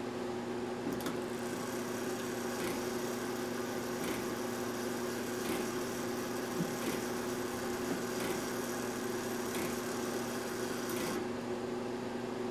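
Brass mechanical clock movement running without its pendulum: a soft rasping whir with a faint click about every second and a half, which stops abruptly near the end.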